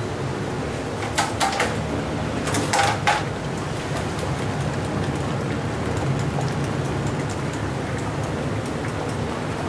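Wooden stick knocking and clinking a few times against a metal strainer basket of boiling ramen noodles, over the steady low hum and hiss of the noodle boiler.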